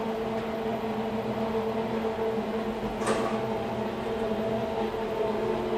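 Elevator car travelling down its shaft: a steady hum from the drive and car, with a brief hiss about three seconds in.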